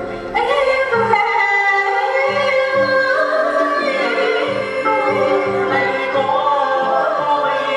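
Traditional Vietnamese water puppet theatre music: a voice singing in a wavering, ornamented line over live instrumental accompaniment.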